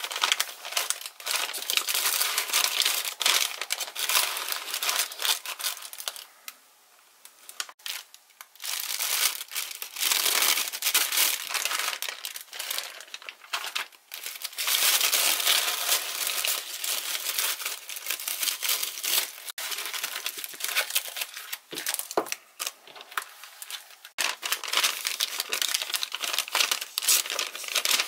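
Kraft paper packaging being handled and unwrapped: honeycomb paper wrap and a paper bag crinkling and rustling, with tape peeled off, in bouts broken by short pauses.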